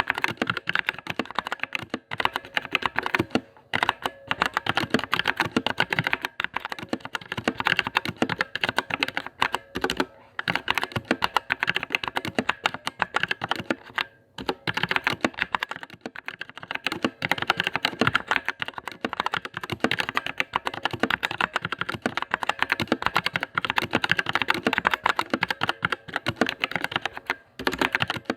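Fast, continuous typing on a mechanical keyboard, a sound test of its switches, with short pauses now and then.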